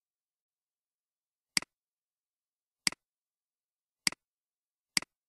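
Four sharp computer mouse-button clicks about a second apart, each a quick press and release, the first about one and a half seconds in.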